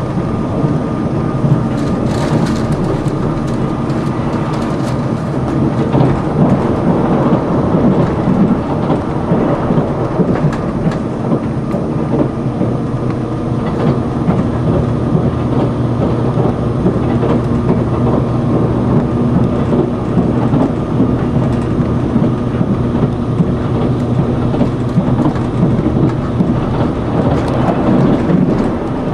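Steady running noise of a limited express Sonic tilting electric train at speed, heard inside the passenger car: a dense low rumble of wheels on rail, with a few faint clicks.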